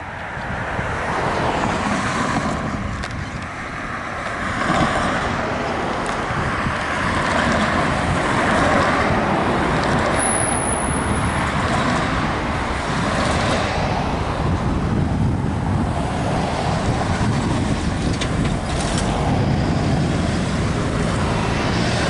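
Road traffic: cars passing close by, engine and tyre noise swelling and fading. A brief high thin whistle sounds about ten seconds in.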